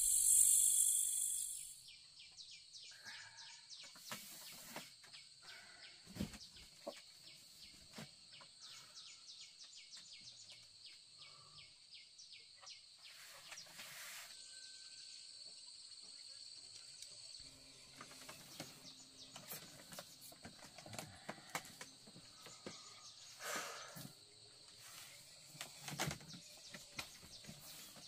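A loud chorus of night crickets cuts off about two seconds in, giving way to quieter rural daytime ambience: a steady high insect buzz with fast even pulsing, faint bird chirps, and a few soft knocks and rustles.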